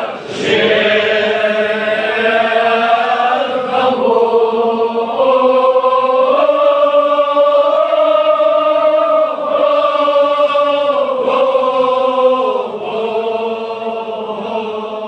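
Group of men chanting a Kashmiri marsiya in chorus, in the pahalwani style, without instruments. They hold long notes that step to a new pitch every second or two.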